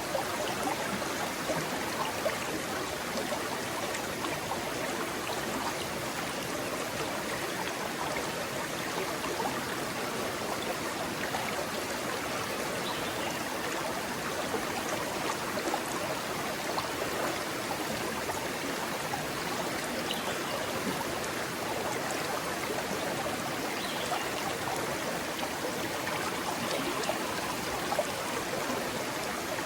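A rocky stream flowing over stones: a steady rushing and splashing of water that keeps an even level throughout.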